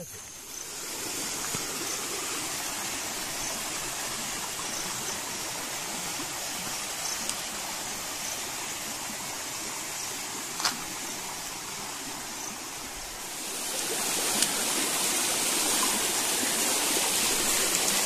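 Shallow forest stream flowing with a steady rushing, which grows louder and brighter about three-quarters of the way through.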